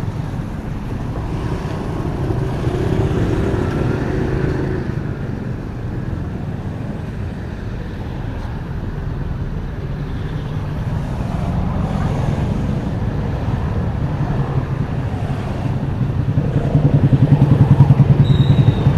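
Street traffic of motorbikes and cars passing, their engines a steady low hum. A motorbike passes close near the end, and its engine becomes the loudest sound.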